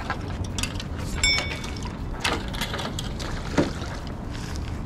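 Spinning reel's gears clicking as it is worked, in scattered short clicks over a steady low background rumble, with a brief high-pitched squeak about a second in.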